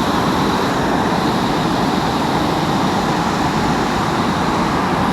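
Steady rushing of fast-flowing stream water, an even continuous wash with no breaks.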